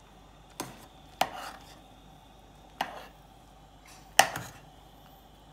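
A spoon knocking against the side of a stainless steel pot while stirring egg pieces into simmering salsa: four separate sharp knocks, the second and the last the loudest.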